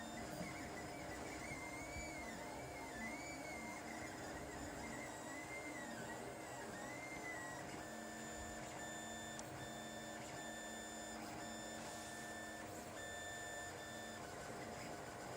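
Lulzbot TAZ 5 3D printer's stepper motors whining as the print head moves. For the first half the whine warbles up and down in pitch. From about halfway it changes to a run of short steady tones, each under a second, starting and stopping one after another.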